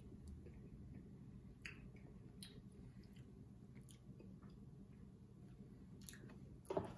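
Faint chewing of a small cookie, with a few soft mouth clicks over a low room hum, and a short louder sound near the end.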